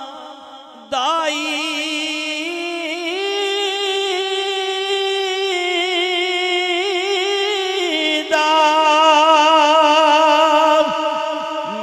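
A man singing a Punjabi naat, drawing out long wavering notes without words. The voice comes in about a second in, holds one long note, then a louder second note from about eight seconds that eases off near the end.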